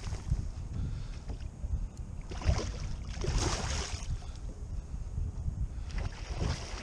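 Wind buffeting the microphone in a steady low rumble, with water sloshing against a kayak's hull in a few swishes, one around the middle and one near the end.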